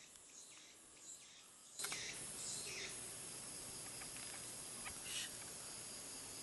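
Faint outdoor background with a few short, high chirps; about two seconds in, the background hiss rises abruptly and stays up.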